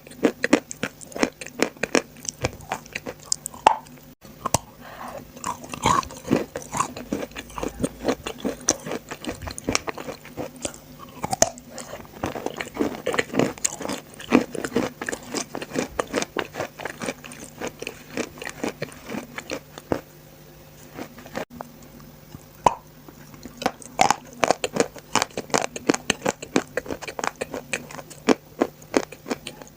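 Close-miked biting and chewing of edible dry chalk, a dense run of crisp crunching crackles with a brief lull about two-thirds of the way through.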